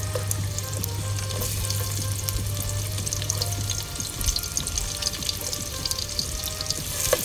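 Sliced onions sizzling and crackling in hot oil in an aluminium pot, the crackle growing denser after about a second and a half.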